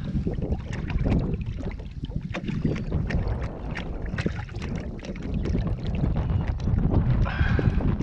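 Wind buffeting the microphone on an open fishing boat, an unsteady low rumble, with many small clicks and slaps through it.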